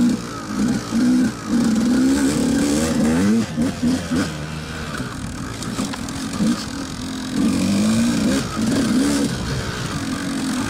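KTM enduro motorcycle engine heard on board as it is ridden along a twisty dirt trail. The engine note climbs and drops several times as the throttle is opened and closed through the turns.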